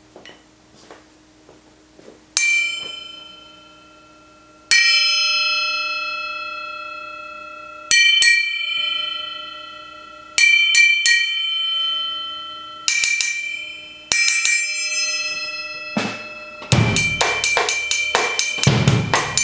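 LP 7-inch Ice Bell cymbal struck one hit at a time, each strike giving a bright, bell-like ring with several clear tones that dies away slowly over a few seconds; some hits come in quick pairs or short flurries. Near the end a drum kit beat starts, with the bell struck rapidly over kick and snare.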